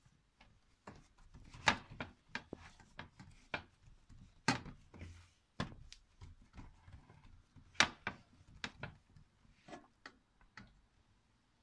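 Hands slapping and patting a piece of soft yeast dough, then pressing it flat on a metal baking tray: an irregular string of short pats and taps, the loudest about two, four and a half and eight seconds in.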